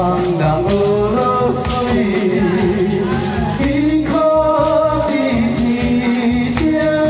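A man singing a slow pop song into a microphone, amplified over a karaoke-style backing track, with a tambourine jingling on the beat.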